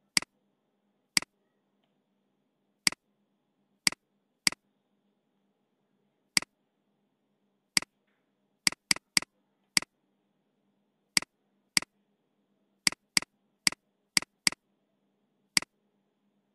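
Computer mouse button clicking: about nineteen short, sharp clicks at irregular intervals, some in quick pairs, over a faint steady hum.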